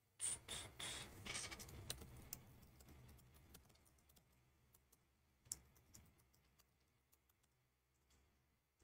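Typing on a computer keyboard: a quick run of keystrokes in the first couple of seconds, then scattered single key clicks that thin out.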